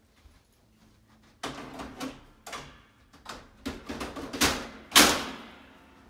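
Metal frame of a Freedom Breeder reptile rack clanking as a shelf frame is lowered and seated onto the rack's uprights. A string of sharp knocks starts about a second and a half in, and the loudest comes near the end and rings out briefly.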